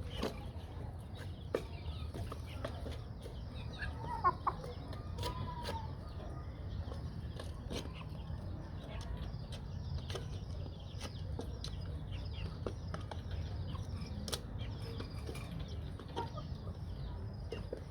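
Aseel chickens clucking, with a few short clucks about four to six seconds in, over a steady run of faint high chirps.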